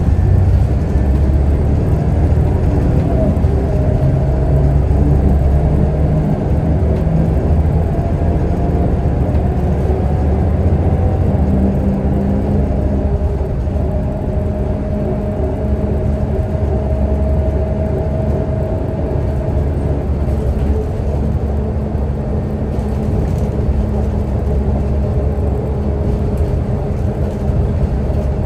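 Scania L94UB bus's DSC9 9-litre six-cylinder turbodiesel running steadily under way, a continuous low drone. Over it, a fainter whine rises slowly in pitch and fades out about twenty seconds in.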